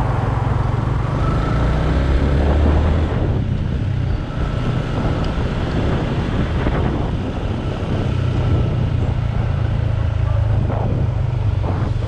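Yamaha Sniper 150 single-cylinder motorcycle engine running steadily while riding, with road noise, its low drone easing a little about three seconds in.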